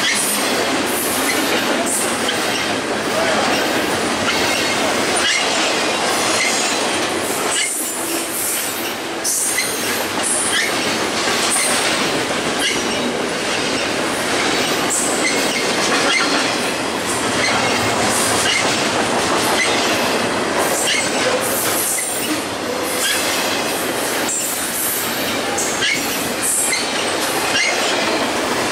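Double-stack container cars of a BNSF freight train passing close at speed: steel wheels running on the rails in a steady loud rush, with repeated clicks and clanks.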